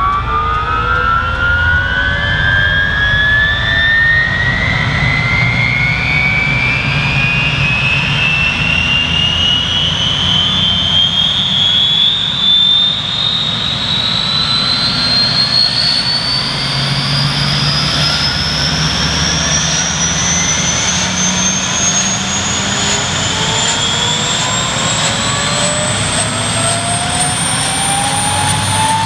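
Kaman K-MAX helicopter's Honeywell T53 turboshaft engine spooling up during startup: a whine that climbs steadily in pitch throughout, over a low rumble, as the intermeshing rotors begin turning.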